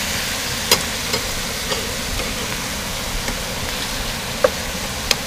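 Catfish fillets sizzling steadily in butter in a frying pan, with about five sharp clicks of a metal slotted spoon against the pan as the fish is moved and broken apart.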